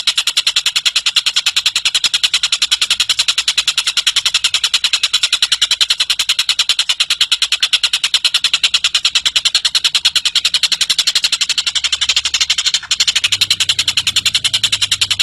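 Tengkek cililin bird calling in a continuous rapid, high-pitched trill of evenly repeated notes, about ten a second, with one brief break about 13 seconds in.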